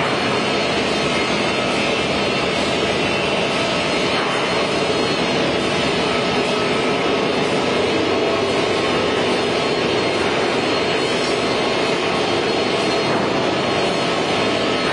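Plywood hot press line machinery running: a loud, steady mechanical noise with no distinct knocks or changes.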